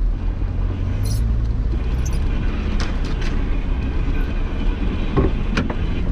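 Nissan Patrol Y60 off-roader driving with a steady low engine drone, and scattered short clicks and knocks from the vehicle over rough ground.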